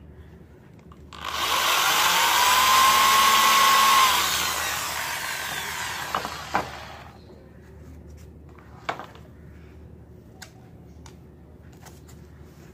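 Electric hand drill spinning up and boring a hole through thin wooden scissor blades for about three seconds, its whine rising then holding, then winding down after the trigger is released. A few light knocks follow as the drill and wood are handled.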